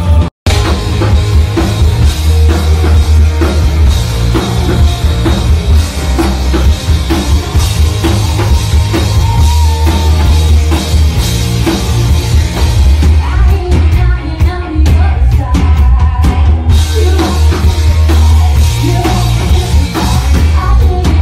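Live rock band playing loud: drum kit with heavy kick drum and bass, electric guitar and a woman singing. The sound cuts out for a moment just after the start.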